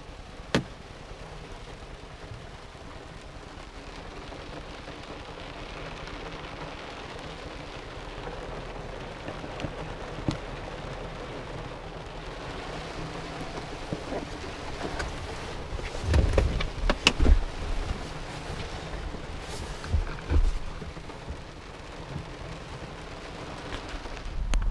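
Steady hiss of rain on a car's body and windows, heard from inside the cabin. A sharp click comes about half a second in, and a cluster of low knocks and thumps comes a little past the middle.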